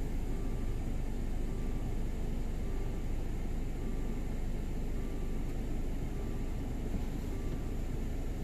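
Idling motor-vehicle engines give a steady low rumble. Over it, a level-crossing warning bell rings faintly in an even beat, a little more than once a second, because the barriers are down for an approaching train.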